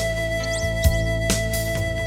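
Instrumental background music: a long held note over soft drum hits, with high chirp-like glides above it.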